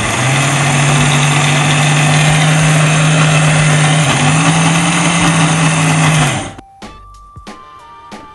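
Electric mixer grinder with a steel jar grinding soaked rice, toor dal and water into a coarse dosa batter. A loud, steady motor whir with grinding noise; the hum steps up slightly in pitch about four seconds in. It is switched off suddenly about six and a half seconds in.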